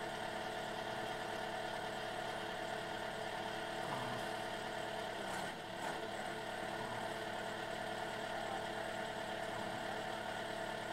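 Engine powering a hydraulic wood splitter, running steadily while firewood logs are split, with a brief dip in level a little past halfway.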